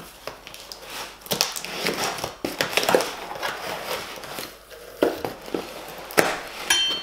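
Packaging being handled: irregular rustling, scraping and light knocks. A brief high tone comes near the end.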